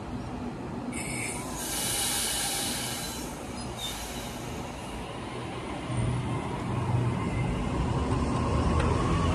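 Double-deck electric suburban train pulling away from the platform and passing close by. A hiss about a second in lasts a few seconds, then a low hum from the train builds steadily louder from about six seconds in.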